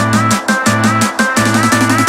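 Electronic dance music with a fast, driving beat, a steady bass line and a repeating synth melody.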